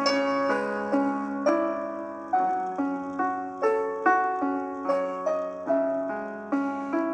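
Gentle background piano music: a slow melody of single notes and chords, about two strikes a second, each note fading away after it is struck.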